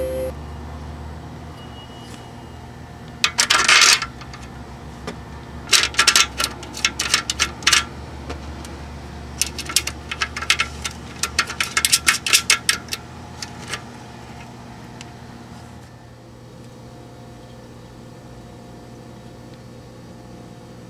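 Screws and a ceramic tube socket clinking and tapping against an aluminium amplifier chassis as the socket is fitted. The light metallic clicks come in three bunches, a short one about three seconds in and two longer runs between about six and fourteen seconds.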